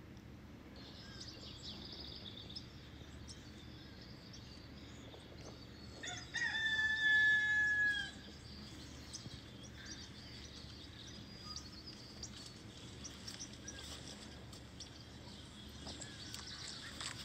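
A rooster crows once, a single held call of nearly two seconds about six seconds in, over steady chirping of small birds.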